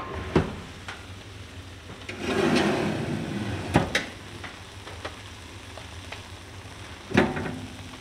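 A ceramic baking dish and metal oven rack being handled: sharp clunks just after the start, about four seconds in and near the end, with a scraping rush lasting about a second, starting about two seconds in, over a low steady hum.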